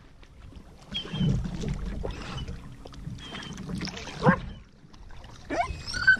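Canoe paddle strokes in the water, with a dog whining: a loud rising whine about two-thirds through and more short whimpers near the end.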